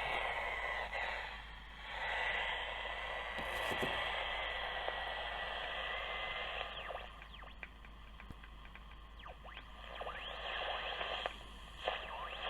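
Static hiss from the speaker of a 1953 Philco 53-956 AM/FM tube radio, with a steady whistle through the first half, then faint whistles that slide up and down in pitch. A low mains hum runs underneath.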